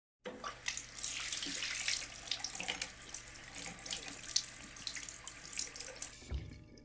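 Bathroom tap running into a sink, with splashing as hands scoop water onto a face. The water cuts in suddenly a moment after the start and stops about six seconds in, followed by a short low thump.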